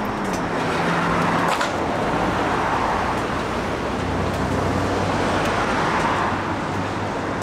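A car driving, its engine running steadily under loud road and tyre noise. The engine note drops a little just after the start and runs lower from about four seconds in.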